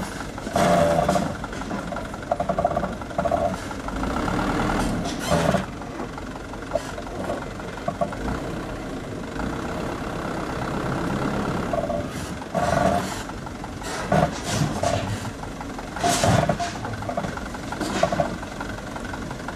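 Mitsubishi Fuso dump truck's diesel engine running as the truck creeps forward with its tipper body raised, unloading gravel. The engine note swells in several short, louder bursts.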